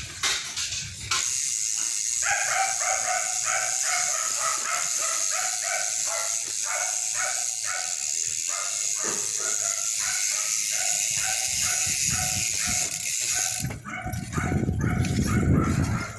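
GUB bicycle rear hub freewheeling with a stainless-steel pawl spring: the pawls ratchet in a steady high buzz while the wheel spins, with short high chirps repeating about three times a second. The buzz cuts off near the end, and a low rumble follows.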